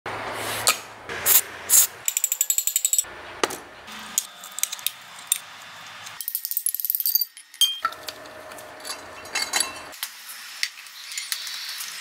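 Metal parts of a washing machine motor being handled: a quick string of short metallic clinks, taps and clicks, with fast runs of rattling clicks about two seconds in and again around six seconds in.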